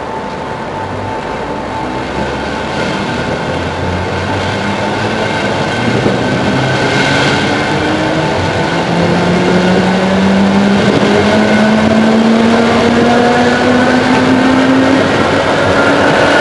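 ČD class 460 electric multiple unit accelerating, heard from inside the train: its traction motors whine with a pitch that climbs steadily, over the rumble of wheels on rails, growing slowly louder.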